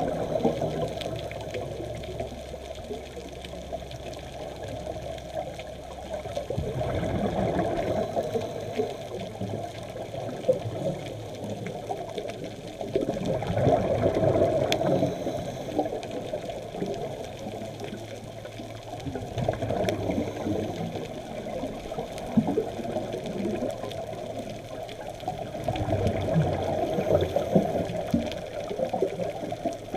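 Underwater sound of a scuba diver's breathing: exhaled bubbles bubbling and gurgling in surges about every six seconds, over a steady wash of water.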